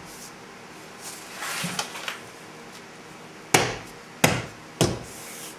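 Plastic door-panel retaining clips snapping into the door frame as the trim panel is pressed home: three sharp clicks in the second half, after a soft rustle of the panel.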